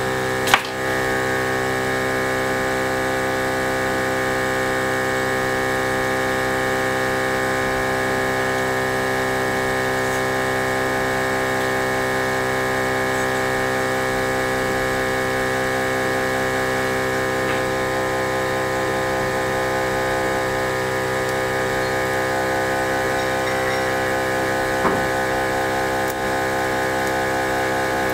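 OM-518Plus LCD separator machine running steadily during automatic wire separation, a constant mechanical hum made of many fixed tones. There is a sharp click just after the start and a lighter one near the end.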